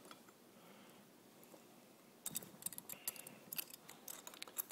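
Channel-lock pliers and a putty knife clicking against a brass hose fitting as its top is screwed back on: a quick, irregular run of small sharp clicks that starts a little over two seconds in.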